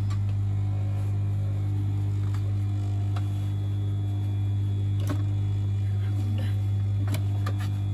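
Low, steady electric hum of the Juki industrial sewing machine's motor running idle, with a few light scattered clicks from fabric and pins being handled at the machine.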